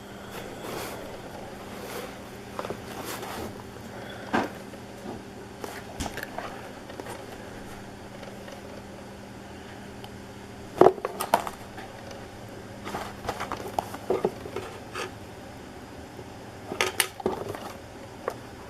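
Handling of a cardboard trading-card blaster box and its foil packs: scattered crinkles, taps and knocks, with the loudest clatter about halfway through and again near the end, over a steady low hum.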